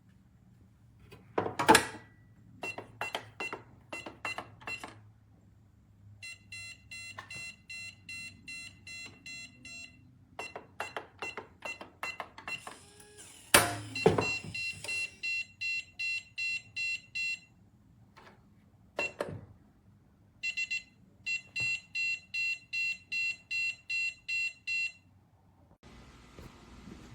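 Electronic pistol safe beeping in trains of short, high, evenly spaced beeps, about three a second, with clicks and knocks from the safe being handled and one loud knock about 13 seconds in.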